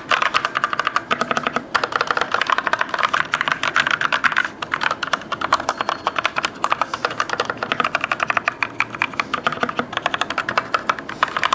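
Fantech Atom 87 tenkeyless mechanical keyboard with red linear switches being typed on fast: a dense run of key clacks, with a couple of brief pauses.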